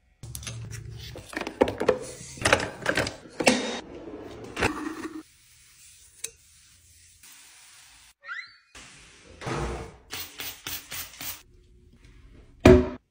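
Household cleaning noises from a string of short clips: taps, knocks and thuds, with wiping and scrubbing between them. One sharp knock near the end is the loudest.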